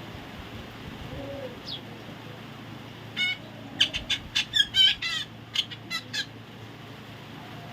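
A parrot giving a quick run of about nine short, high calls over some three seconds, starting about three seconds in, over a steady background hiss.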